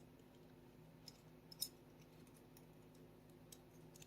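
A few faint, sharp clicks of small pistol parts being handled and fitted, the loudest about one and a half seconds in, as the manual safety is worked into a Sig Sauer P365 fire control group. Underneath is a faint steady low hum.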